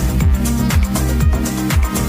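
Electronic dance music with a steady kick drum at about two beats a second over a sustained bass line.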